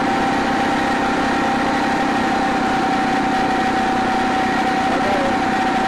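Phatmoto Rover motorized bicycle's small four-stroke gas engine running steadily while riding, a constant drone with a steady high whine over it.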